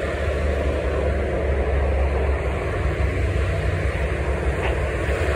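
Steady low rumbling outdoor noise with no clear events.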